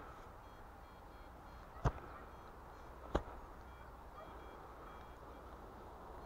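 Garrett Ace 250 metal detector giving a series of short, faint beeps as its coil is swept over a freshly dug hole, signalling a metal target in the soil. Two sharp knocks, about two and three seconds in, are the loudest sounds.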